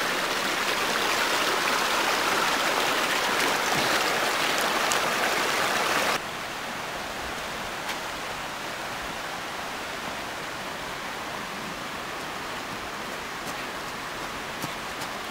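Shallow mountain river running very low, a steady rush of water over stones. About six seconds in, the rush drops abruptly to a quieter level.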